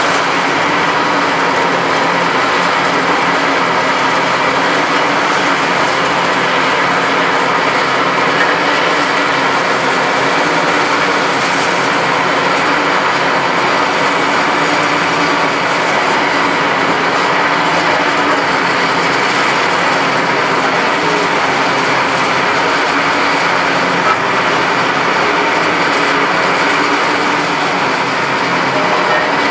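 A Komatsu PC390-11 HRD demolition excavator's six-cylinder Komatsu SAA6D114E-6 diesel runs steadily under load while its hydraulics work the demolition processor. The machine noise stays loud and even throughout.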